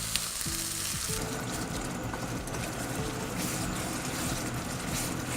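Curry base of chili paste, onion, spices and a little coconut milk sizzling in a hot pan, a steady hiss that grows a little fuller about a second in.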